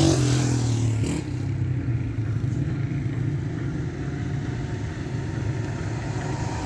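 Road traffic: a passing vehicle's engine, its pitch falling over the first second, then a steady low rumble of traffic.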